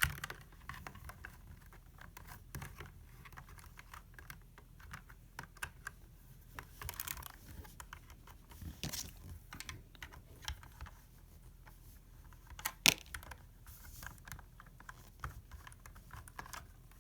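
Plastic LEGO bricks of a puzzle box clicking and rattling as its parts are handled, pushed and twisted; a run of small irregular clicks, with one sharper knock about thirteen seconds in.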